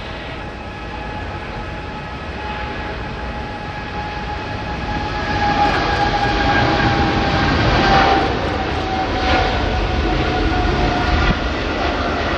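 Jet airliner engines: a rumble with a steady high whine that grows louder to its peak about eight seconds in, the whine dipping slightly in pitch near the loudest point.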